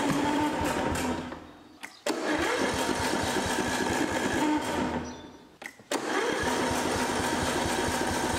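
Briggs & Stratton 17.5 HP single-cylinder OHV engine on a riding mower being cranked by its electric starter in three bursts, each dying away without the engine running on. The engine is flooded with petrol, its spark plug soaked.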